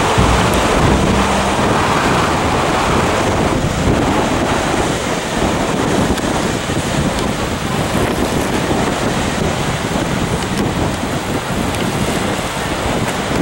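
Strong wind buffeting the microphone over the steady wash of waves on the shore.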